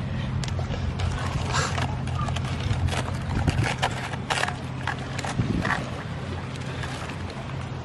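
A live crab being handled on hard ground: its shell and legs give many irregular sharp clicks and taps against the stone. A steady low hum runs underneath.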